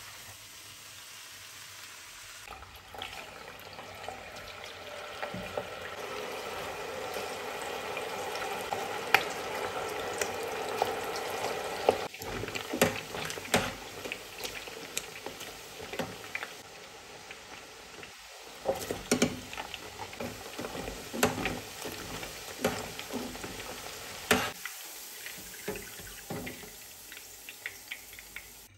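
Chicken pieces sizzling and bubbling in a deep fryer's hot oil, with metal tongs clicking against the wire mesh basket as they are moved around.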